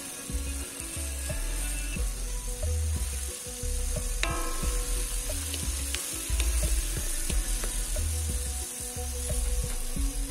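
Food frying in hot oil in a wok: a steady sizzle, with scattered clicks and scrapes of a spatula as it is stirred.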